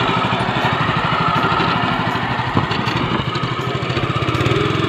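Small long-tail boat engine running steadily.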